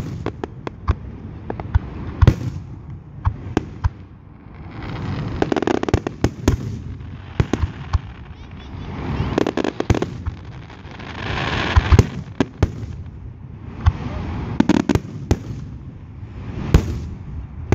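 Aerial fireworks display: shells bursting in rapid, irregular bangs, many in quick succession. Between the bangs a rushing noise swells and fades every few seconds.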